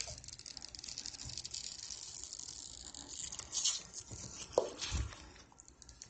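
Strip of tape rustling and scraping as it is pulled through the gap under a door to draw the lever handle down, with two short knocks near the end.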